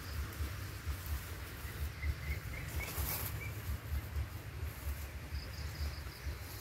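Small birds chirping outdoors. A quick run of about eight short chirps comes about two seconds in, with faint high peeps near the start and near the end. Under it runs a steady low rumble on the microphone, and there is a brief rustle about three seconds in.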